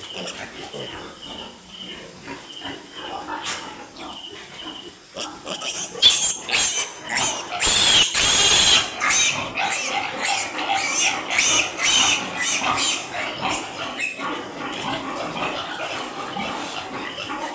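Piglets squealing and grunting, quiet at first and then loud and busy after about six seconds, with one long shrill squeal near the middle.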